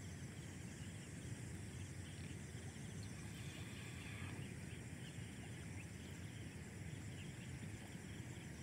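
Steady low outdoor rumble, with a few faint high bird chirps in the middle.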